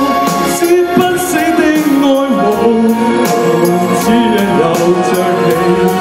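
Male vocalist singing into a handheld microphone over a pop backing track with a steady drum beat.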